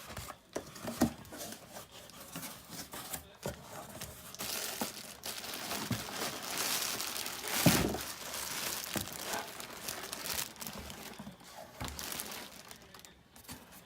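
Packaging being handled and opened: irregular crinkling, rustling and tearing with small clicks, loudest in a brief burst about two thirds of the way through.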